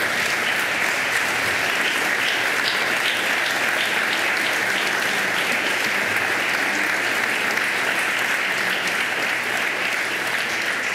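A large assembly of people applauding together, a dense, steady clapping from many hands.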